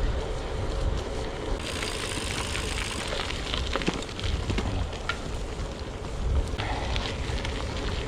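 Gravel bike tyres rolling over a gravel track, with scattered small clicks and a gusty low wind rumble on the microphone; the tyre hiss gets louder for about a second and a half, about two seconds in.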